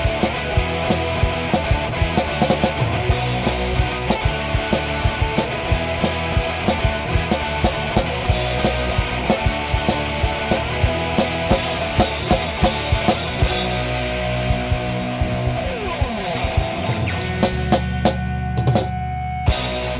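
Rock music with drum kit and guitar, a fast, steady beat. It stops abruptly near the end.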